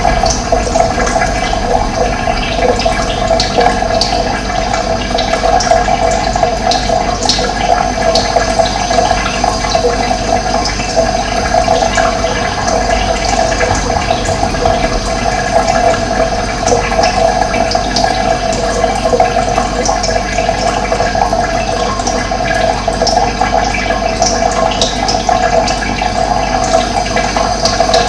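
Running water flowing steadily, with short high bird chirps here and there.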